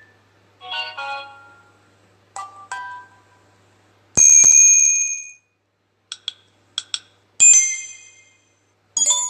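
Samsung Galaxy J2 Core notification tones played one after another: about six different short chimes and bell-like dings with gaps between them. The loudest is a high ringing tone about four seconds in, followed by four quick blips and a bright ding.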